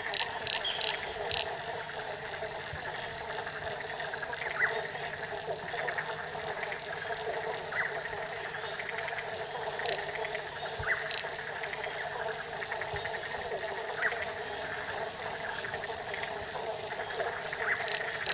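Dense chorus of many frogs calling together, with a sharper single call cutting through about every three seconds.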